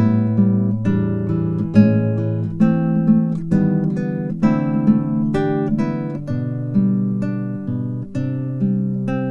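Background music: acoustic guitar playing plucked notes and strummed chords at an even pace.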